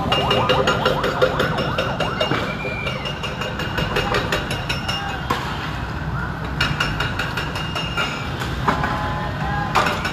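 Hydraulic excavators demolishing concrete pillars: a diesel engine rumbles under a constant clatter of knocks and cracks from breaking concrete. Now and then brief rising and falling tones sound over it, one about two seconds in and a few near the end.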